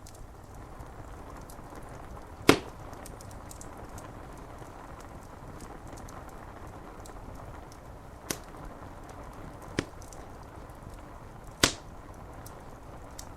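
Steady rain on window glass with a wood fire crackling: four sharp pops, the loudest about two and a half seconds in and another near the end.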